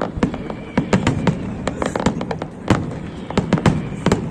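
Fireworks display going off: a rapid, irregular series of sharp bangs and cracks, several a second.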